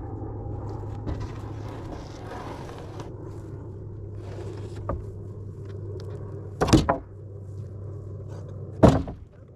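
A machine running with a steady low hum, broken by two loud, short, sharp bangs about two seconds apart; the hum stops just before the end.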